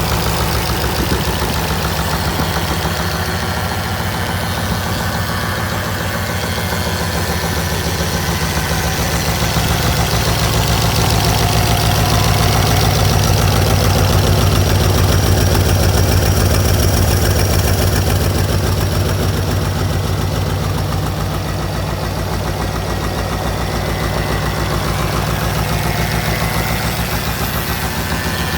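Scania-Vabis diesel engine running steadily with an even, rapid firing pulse. It grows a little louder for several seconds in the middle, then settles back.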